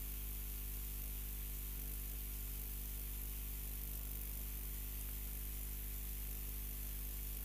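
Steady electrical mains hum with a constant hiss, unchanging throughout, as from an audio line or mixer with nothing playing through it.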